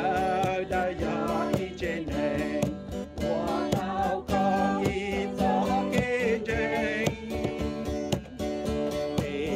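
A worship song sung over a strummed acoustic guitar, the melody wavering with vibrato over steady, regular strumming.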